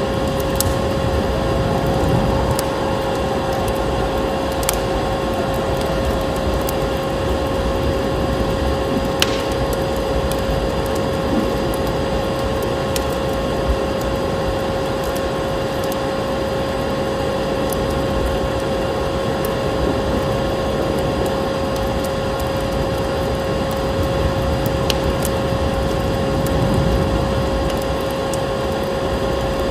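Fireplace fire crackling, with scattered sharp pops, over the steady whirring hum of a running vacuum cleaner that holds one constant pitch, and a dense rushing noise of storm wind beneath.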